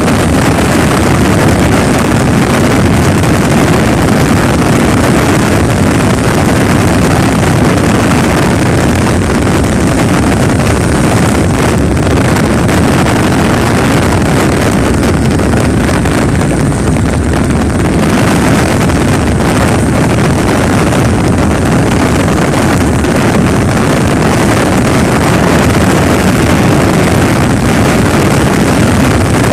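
Steady, loud rush of road and wind noise from inside a vehicle driving on a rain-wet highway, with wind buffeting the microphone.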